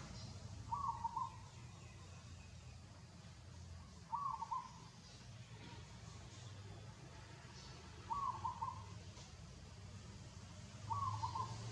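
A bird call repeated four times, each a short run of quick notes, about every four seconds, over a low steady hum.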